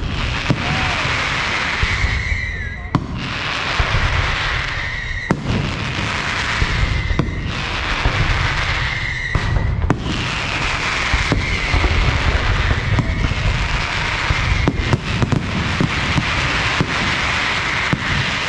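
Aerial fireworks display going off continuously: a string of whistling shells, each whistle falling slightly in pitch and cut off by a sharp bang, repeating every second or two over steady crackling and low booming.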